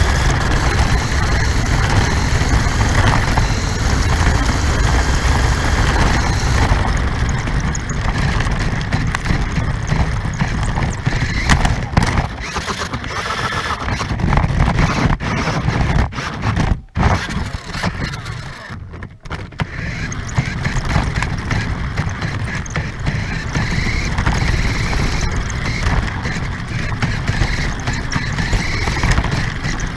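RC car driving with a GoPro mounted on it: a steady, loud rumble of its motor and wheels running over the ground, dropping out briefly twice a little past the middle.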